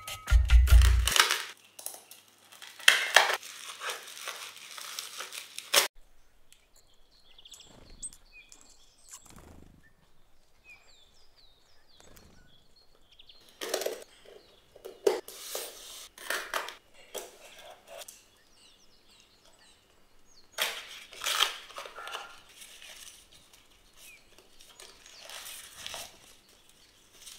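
Packaging being unpacked by hand in bursts: plastic wrap and packing tape crinkling and peeling, a utility knife slicing tape on a cardboard box, cardboard tearing open, and foil wrapping crinkling. A loud low thump comes in the first second.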